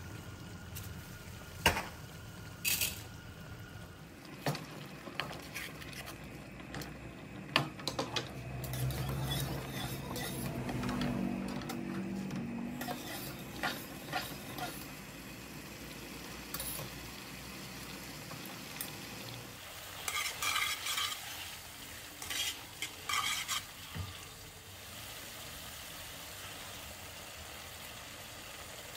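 Spaghetti and oil sizzling in a frying pan with cherry tomatoes, while metal tongs clink and knock against the pot and pan as the pasta is lifted across from the boiling water. The sharpest clinks fall in the first eight seconds, with a cluster of clatters about two-thirds of the way through.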